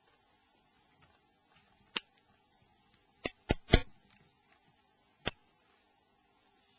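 Sharp plastic clicks from a mobile phone's housing parts being handled and snapped apart with small tools: a single click, then a quick run of three, then one more.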